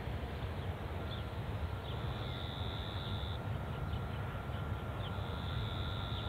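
Low rumble of EMD-powered diesel locomotives approaching from a distance with a freight train. Over it, birds chirp, a high buzz comes and goes twice, and a faint steady whine joins about a second in.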